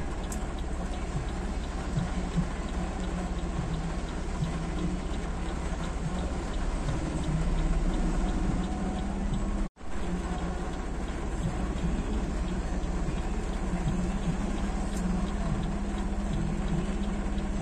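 Heavy rain and traffic on a flooded street: a steady wash of rain noise over a low, even engine hum. The sound breaks off for an instant about ten seconds in, then carries on the same.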